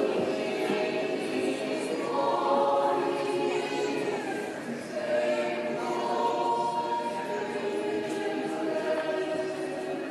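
A choir singing a slow song in long, held notes.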